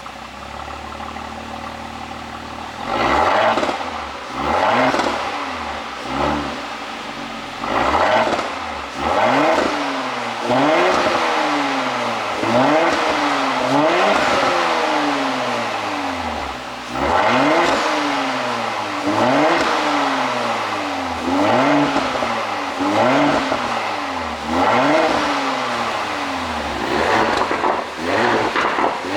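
Porsche Cayenne 3.0T's turbocharged V6 idling, then revved sharply over and over from about three seconds in, each quick rise in pitch dropping straight back. Each rev comes with exhaust pops and crackles on the way down, set up by an ECU pop-and-crackle tune.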